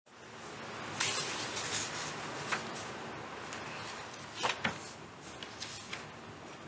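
A steady hiss of room noise with scattered sharp clicks and light knocks, the loudest a pair around four and a half seconds in.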